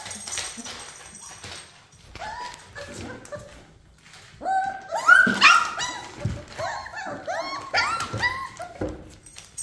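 Young puppies whining and yipping in short, high-pitched calls. There are a few calls about two seconds in, then a quick run of louder ones from about halfway to the end.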